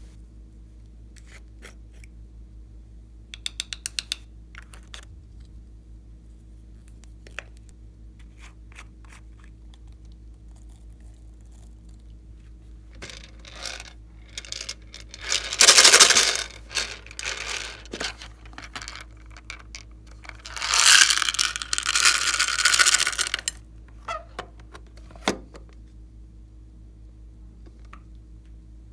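Small plastic toy containers being handled and their contents (glitter and small beads) shaken out onto slime: a quick run of clicks early on, then two longer rattling pours, the loudest a little past halfway and again about three-quarters through, over a low steady hum.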